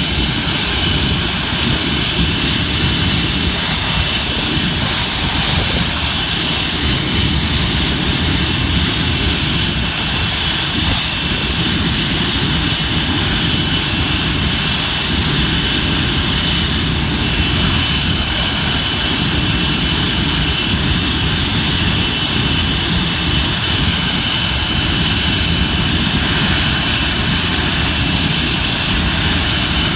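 RAF Tornado GR4's RB199 turbofan engines running steadily on the ground, a high whine over a low rumble with no change in pitch or level.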